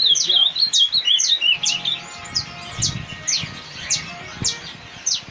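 Caged Peruvian canaries (canário-peruano) calling and singing: sharp, high notes that fall steeply in pitch, repeated about once or twice a second, with a quick warbling run of notes in the first second and a half.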